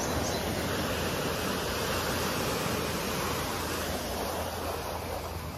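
Ocean surf washing steadily, fading out near the end.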